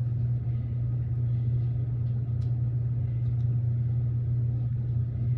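Steady low hum with a few faint, small clicks.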